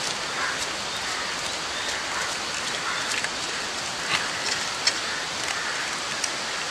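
Steady hiss with scattered faint crackles: butter sizzling on hot tandoori-roasted quail as it is brushed on.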